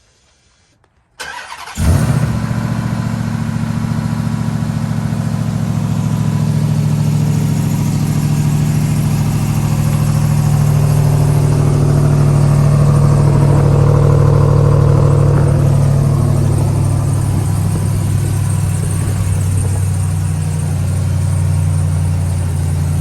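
Ram TRX's supercharged 6.2-litre Hemi V8 cold-started: the starter cranks briefly about a second in, the engine catches and flares, then settles into a steady, loud fast idle.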